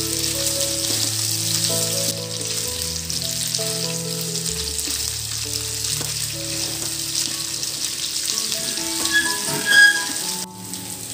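Skin-on chicken pieces sizzling steadily as they fry in oil in a non-stick pan, turned now and then with a spatula. Soft background music of held notes plays underneath.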